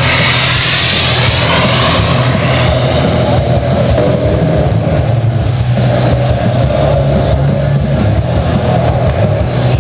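Twin model turbine jet engines of a large radio-controlled A-10 Warthog running in flight, a rushing jet hiss. It is loudest in the first two seconds as the model passes close, then settles into a steady drone.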